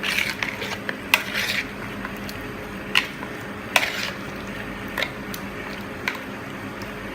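Chicken pieces being mixed into a yogurt marinade in a bowl: a steady wet squishing, with a few sharp clinks against the bowl.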